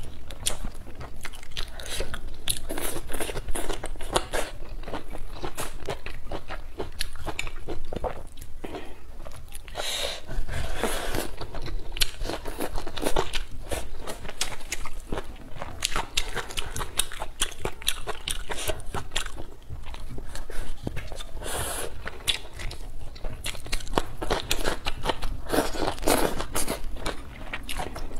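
A person eating close to the microphone: crunchy bites and wet chewing clicks, one after another, as she chews braised chicken, potato and green chili peppers.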